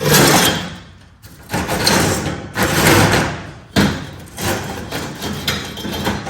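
Used steel plasma-table slats being handled and set down: a series of metal clanks and scrapes, several in a few seconds.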